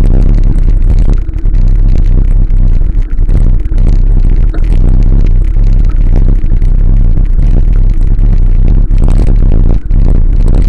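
Wind buffeting the microphone of a camera on a moving bicycle: a loud, steady low rumble. A few short knocks and rattles come through near the end as the bike rides over rough, cracked pavement.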